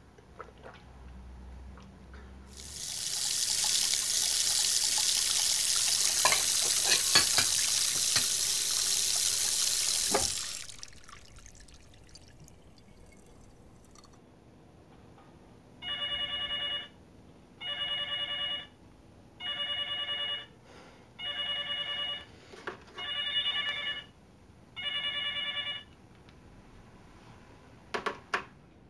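Kitchen tap running water into the sink for about eight seconds, with dishes clinking. A few seconds later a telephone rings six times in short, evenly spaced rings, then there are a couple of clicks.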